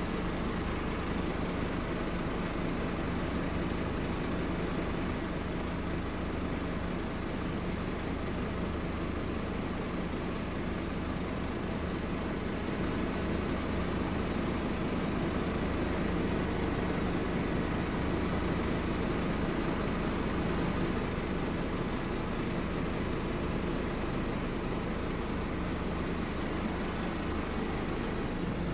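Scania OmniCity N230UD double-decker bus's five-cylinder diesel engine running steadily, heard from inside the passenger saloon as a constant low engine hum.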